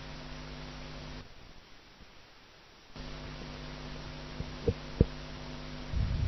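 Steady low electrical hum over a faint hiss, which cuts out for about two seconds and then returns. A few short faint clicks come about two-thirds of the way through.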